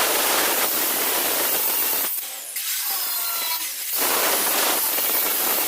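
A power tool cutting, its steady noise easing off briefly about two seconds in and again near four seconds.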